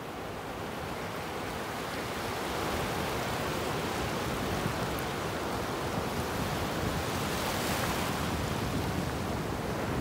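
Ocean surf breaking and foam washing over the shore: a steady rushing that grows louder after about two seconds and is fullest near the end.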